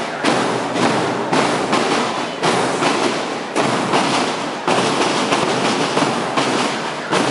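A school marching drum corps of snare and bass drums playing a marching cadence: a dense, rattling drum sound with a strong accented beat about once a second.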